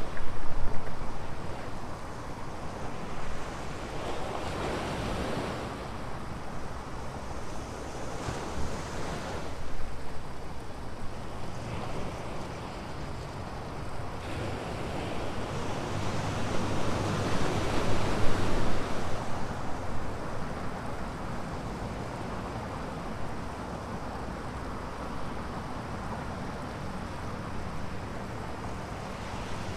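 Ocean surf breaking on a beach: a steady wash of waves, with several louder breakers swelling up and ebbing away. A little wind noise on the microphone.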